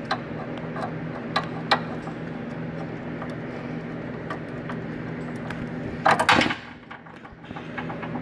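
Hand tools working a bolt on the starter bracket under the engine: a few sharp metal clicks, then a brief, loud metallic rattle about six seconds in, over a steady low hum.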